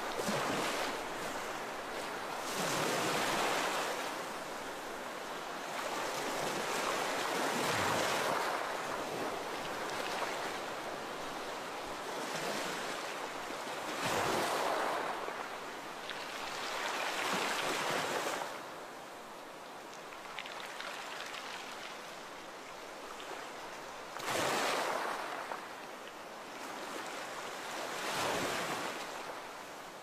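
Sea waves washing ashore, each breaking and swelling into a rush of surf, then fading as it drains back, every few seconds.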